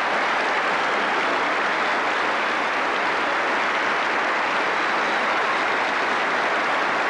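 Audience applauding in a dense, steady ovation.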